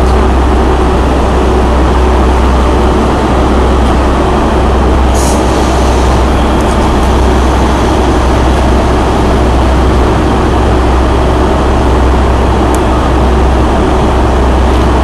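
Steady, loud hum and rumble of electric trains standing at a station platform, with a constant tone over it. A short hiss comes about five seconds in.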